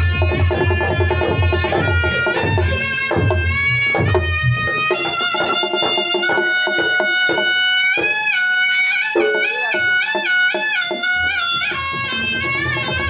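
Reog Ponorogo gamelan music: a slompret shawm plays a piercing, ornamented melody with quick trills over kendang drum strokes. The heavy low drumming drops out about five seconds in, leaving the shawm over lighter percussion, and comes back near the end.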